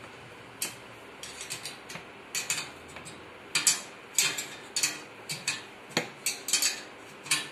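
Steel open-end spanner clicking against a nut and the cast-iron sewing machine treadle stand as the nut is tightened in short turns, the spanner refitted on the nut each time. An irregular series of sharp metallic clicks, sparse at first and coming thick and fast in the second half.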